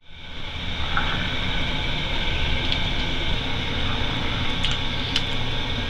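Steady room-tone hiss and hum, like a fan or air conditioning, with a few faint clicks.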